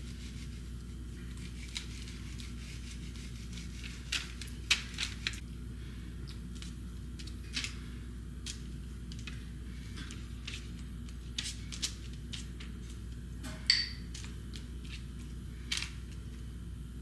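Silicone pastry brush dabbing melted butter onto raw biscuit dough and dipping into a glass bowl: scattered soft taps and clicks, with one sharper, briefly ringing click late on, over a steady low room hum.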